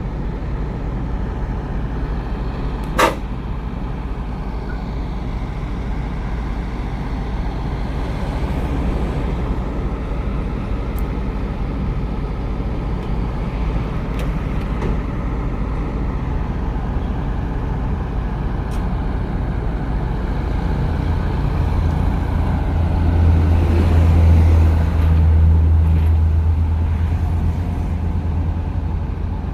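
Heavy diesel engine running steadily during the unloading of an excavator from a truck, growing louder and heavier for several seconds near the end before easing back. A short sharp sound cuts in about three seconds in.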